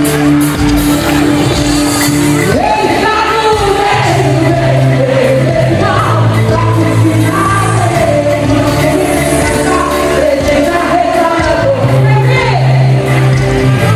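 Christian worship song: sustained chords and bass, joined about two and a half seconds in by a singer's voice carrying the melody.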